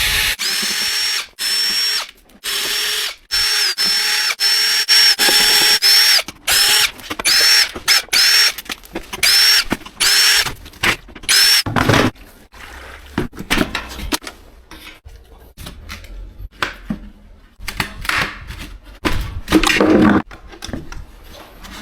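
Power drill running in about a dozen short bursts of roughly a second each, with a high steady whine, during washing-machine disassembly. After about eleven seconds the drilling stops and scattered knocks and clatter of plastic and metal parts being handled follow.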